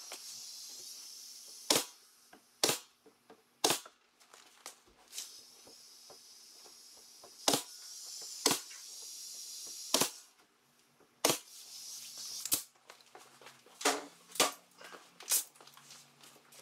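Pneumatic nail gun firing nails into wood trim, about a dozen sharp shots spaced irregularly, roughly a second or so apart. A hiss of air follows some of the shots.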